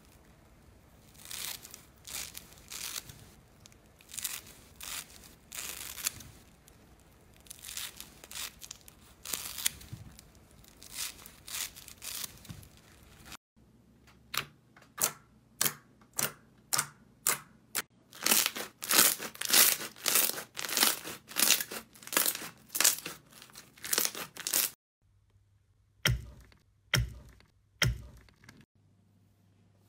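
Scissors cutting through a foam sponge with irregular crunching, crackling snips. After about 13 seconds this gives way to fingers pressing into a slime in a bowl, popping its air pockets in a run of sharp pops, about two a second. Near the end come three dull squishes as hands press a slime lump.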